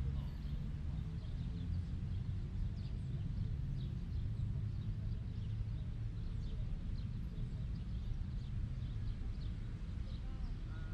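Outdoor park ambience: a steady low rumble with many faint, brief bird chirps scattered throughout.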